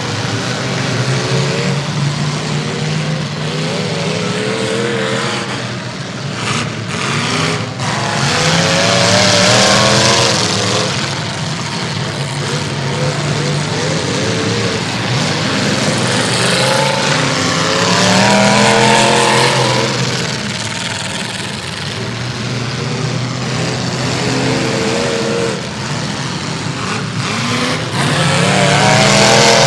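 Several full-size demolition-derby cars racing a figure-eight. Their engines rev and surge as they accelerate through the laps, the pitch rising and falling again and again over a steady wash of noise.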